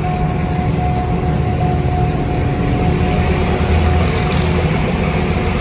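Narrow-gauge mountain train running, heard from on board: a steady low rumble of the carriage on the rails, with a thin, steady whine above it.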